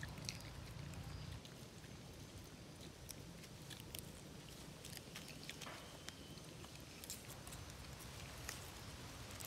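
Faint, scattered crunching and clicking of young long-tailed macaques chewing green plant stalks, over a low steady rumble.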